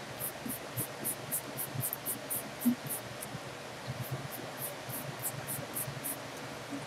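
Kneaded eraser rubbed lightly back and forth over drawing paper to lift a rough pencil sketch: a quick run of soft, high-pitched swishes, about four a second, with a brief pause midway.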